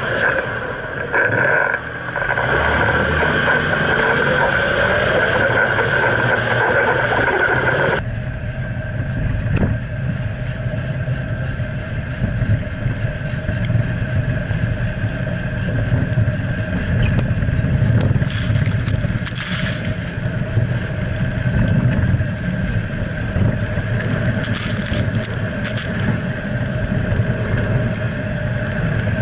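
Jeep Wrangler Rubicon driving over sand, heard from under the vehicle: a steady low drivetrain and engine rumble with tyre and wind noise. The sound changes abruptly about eight seconds in, and bursts of hiss come and go later on.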